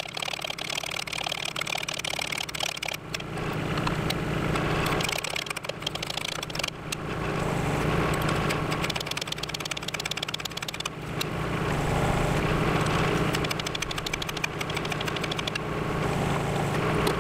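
Mini excavator's Kubota D722 three-cylinder diesel engine running steadily, its sound swelling and easing several times.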